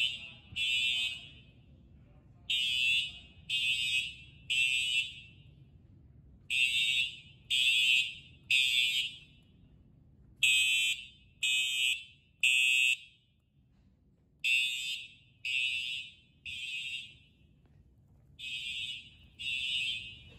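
Simplex TrueAlert horn strobes sounding the temporal-3 evacuation signal: three horn blasts, a pause, then three more, repeating about every four seconds. The fire alarm system is in alarm after being activated from a manual pull station.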